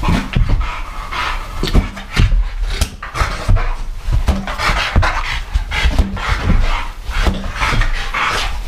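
Old English Bulldog and French Bulldog panting in quick, breathy bursts as they play, with scattered thumps of movement on the floor.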